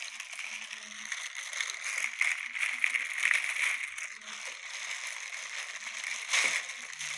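Steady hiss of background room noise, with faint low murmuring.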